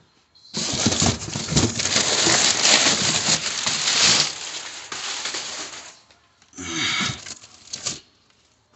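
Cardboard boxes being shifted and rummaged through close to the microphone: a long stretch of rustling and scraping of about five seconds, then a shorter burst about a second later.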